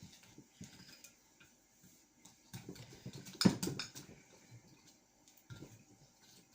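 Scattered light scrapes and clinks of a utensil against a dish as flour is added to a stiff dough, with one louder knock about three and a half seconds in.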